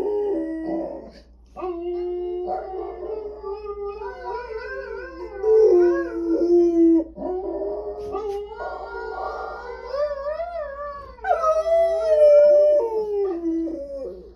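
A bulldog howling in long, wavering howls, about four in a row with short breaths between them. Each howl wobbles in pitch and sags at its end.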